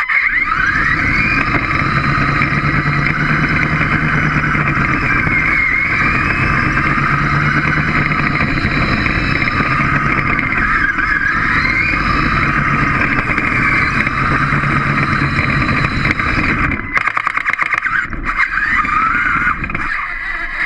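A small robot's electric drive motors and gears running as it drives across a concrete floor, a whine whose pitch rises and falls with its speed and turns. A few short clicks and breaks come about 17 seconds in.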